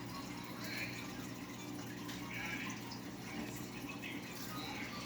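Aquarium filter running: water trickling and gurgling over a steady low hum, with a single sharp knock right at the end.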